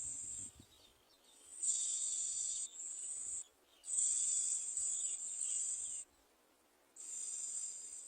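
Insects chirring in a high, steady buzz that comes in bursts of one to two seconds with short pauses between them.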